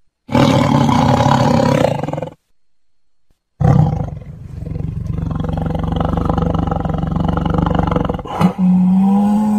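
Big cat roaring: a loud roar of about two seconds, a second of silence, then a longer rough, rumbling roar. Near the end a steadier, evenly pitched call begins.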